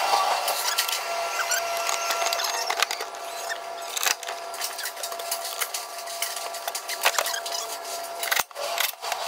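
A steady high-pitched electric whine with scattered clicks and taps of tools and metal parts being handled. The whine cuts off about eight seconds in.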